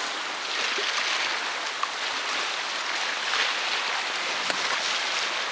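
River rapids rushing around an inflatable raft: a steady hiss of whitewater.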